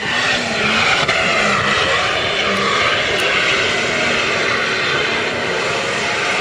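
Toyota Land Cruiser engine running hard at high revs in one steady loud drone, under heavy load as the SUV powers up a soft sand dune with its wheels spinning.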